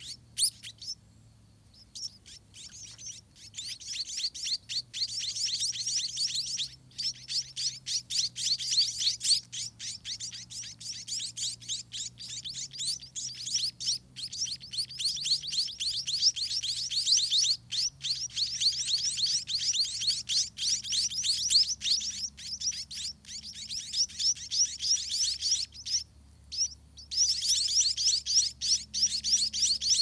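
Spotted munia nestlings begging at the nest as they are fed: a rapid, continuous run of high, thin chirps that starts a few seconds in and breaks off briefly near the end.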